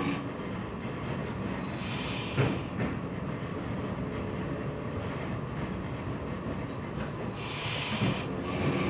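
Train running along the track: a steady rumble with a few sharp knocks, and two short spells of high hissing, one about two seconds in and one near the end.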